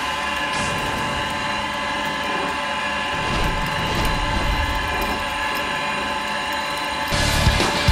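Electric pipe threading machine (Newton NT2-R) running, its die head cutting a thread on a steel pipe: a steady motor and gear whine. About seven seconds in, louder music with a beat comes in over it.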